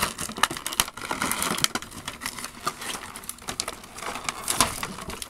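Thin clear plastic packaging bag crinkling as hands pull it open, a dense run of irregular sharp crackles.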